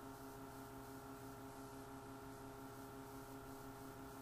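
Faint steady hum with a light, even pulsing: room tone with no distinct handling sounds.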